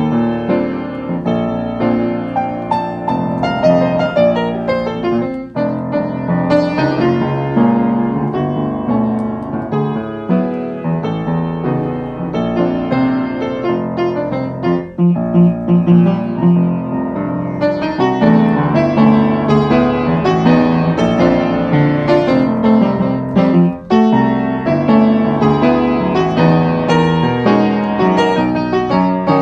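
Piano music, a steady stream of notes with no voice.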